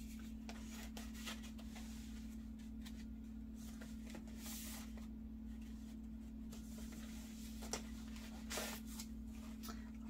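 Paper rustling and sliding as junk journal pages are turned and paper tags are pulled out and handled: a scatter of short swishes, a longer one about halfway through. A steady low hum runs underneath.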